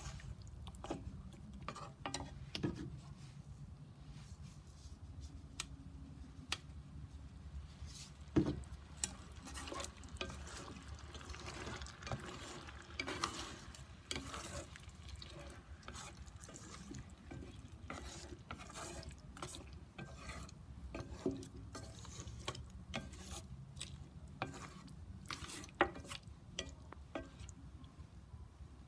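Chopsticks stirring and turning chicken drumsticks in sauce in an electric skillet, with irregular clicks and taps against the pan and meat over a soft sizzle of the cooking sauce.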